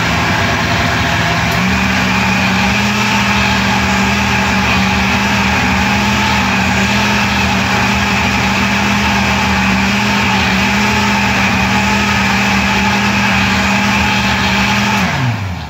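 Countertop blender motor running at speed, blending a thick juice of carrot, banana and milk; its pitch steps up once about a second and a half in, then holds steady. Near the end it is switched off and spins down with a falling whine.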